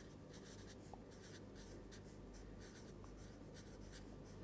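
Marker pen writing on paper: faint, short scratchy strokes as words are written out, over a low steady hum.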